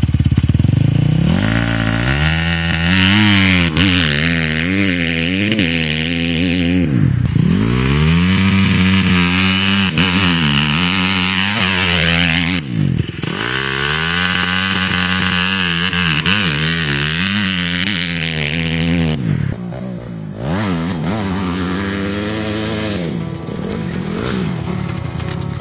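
Motocross bike engine revving hard as it is ridden, its pitch climbing and falling again and again with the throttle and gear changes, with a few sharp drops where the throttle is shut.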